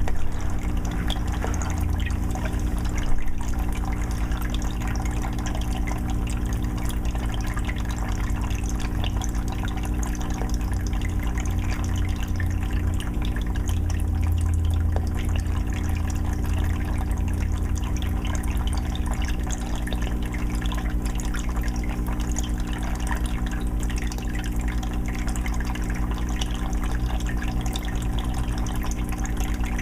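Aquarium filter on a 20-gallon fish tank: water trickling and splashing steadily back into the tank, over a steady low hum.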